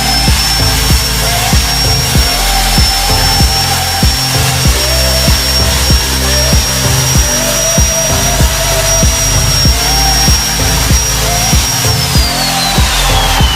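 Background music with a steady beat and a repeating melody. Over it runs a thin, steady high whine that slides down in pitch near the end, like a small motor winding down.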